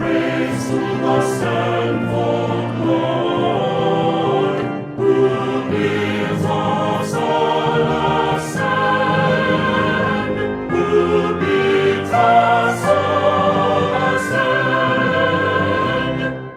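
Choir singing a piece from a ritual oratorio in held, chord-like notes, with a brief break about five seconds in.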